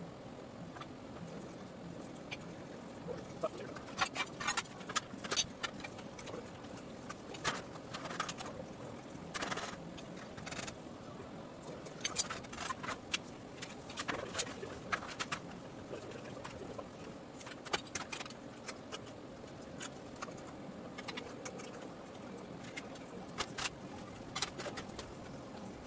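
Scattered metal clinks and taps of steel C-clamps and locking pliers being set and tightened on steel frame-rail pieces, over a steady low background hum.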